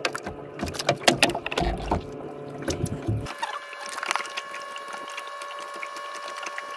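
Knocks and rattles of gear being handled in a small fishing boat. About three seconds in, the low rumble stops abruptly and a steady whine made of several high tones takes over.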